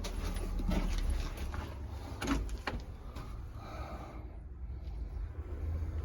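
A few scattered knocks and scrapes, the sharpest near the start and about two and a half seconds in, over a low rumble.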